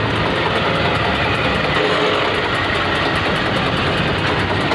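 Diesel tractor engine idling steadily.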